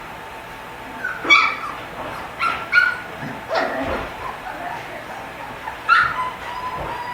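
Nearly four-week-old Portuguese Water Dog puppies whimpering and yipping: several short high-pitched cries, then a thin drawn-out whine near the end.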